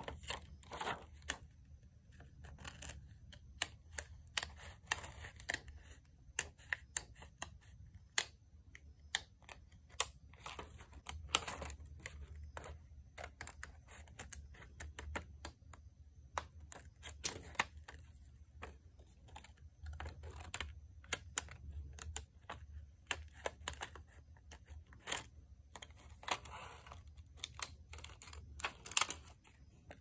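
Paper stickers and scissors handled on a tabletop: irregular crisp clicks and taps, with short stretches of paper rustling, over a faint low hum.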